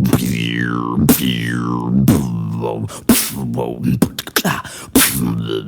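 Beatboxer imitating a didgeridoo with the mouth: a low buzzing drone with two falling whoops over it. About three seconds in it breaks into short clicks and choppy vocal noises.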